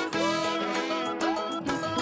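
Background music with a beat and melodic instrument lines.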